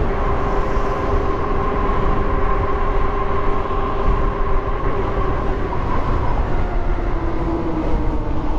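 Dual Bafang hub motors on a 72 V fat-tire e-bike whining steadily while riding, the whine dropping a little in pitch near the end. Heavy wind rushes over the microphone underneath.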